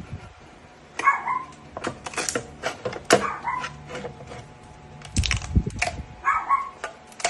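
Short animal cries, repeated every two to three seconds, over scattered sharp clicks, with a few low knocks about five seconds in.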